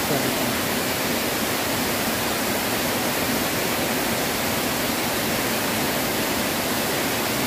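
Water pouring over a small stone weir into a river pool: a steady, even rush.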